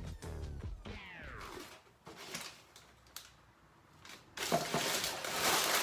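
Paper packing being unwrapped: a short falling tone about a second in, a few faint clicks in a near-quiet stretch, then dense paper crinkling and tearing starting about four seconds in.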